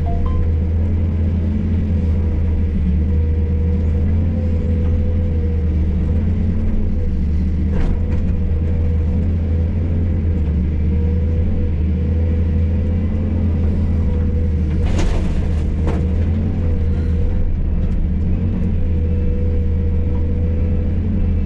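Hydraulic excavator's diesel engine running steadily under work, a deep continuous drone. Two sharp knocks break through it, one about a third of the way in and a louder one past halfway.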